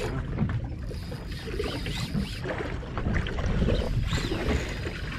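Wind and sea noise around a small fishing boat offshore, with faint music drifting across the water as a few arching tones.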